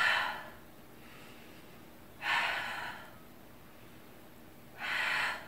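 A woman's forceful breaths out through the mouth, three of them about two and a half seconds apart, each one pushed out as she curls up in an abdominal chest curl.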